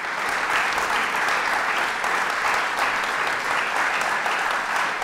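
An audience applauding, with the steady clapping of many hands.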